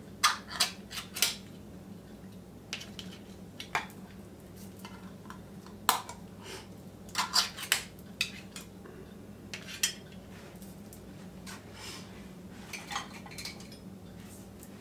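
Metal spoon scraping and clinking against tin cans as thick condensed cream soup is scooped out into a mixing bowl, in scattered clicks and short scrapes, some in quick clusters.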